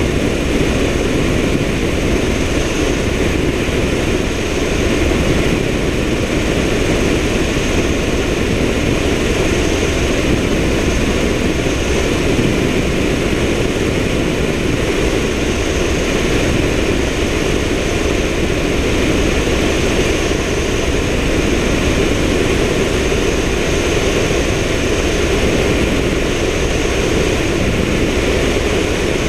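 Helicopter in flight heard through a GoPro Hero3 mounted on the outside of the airframe: a steady, loud rush of rotor and engine noise with a thin high whine over it.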